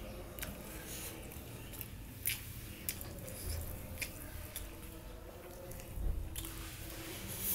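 Close-miked eating sounds: chewing and wet smacking clicks, irregular and spaced, with squishing as bare fingers mix rice with coriander paste on a steel plate.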